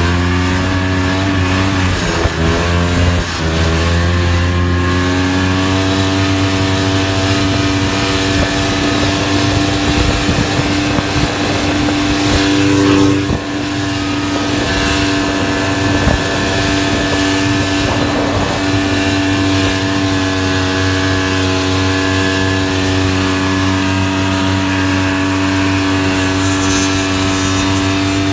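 Snowmobile engine running, its pitch climbing over the first few seconds and then holding steady.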